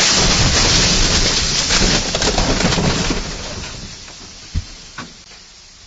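A car crashing into a lorry: metal crunching and windscreen glass shattering in a loud, dense clatter for about three seconds, then dying away, with two sharp knocks near the end.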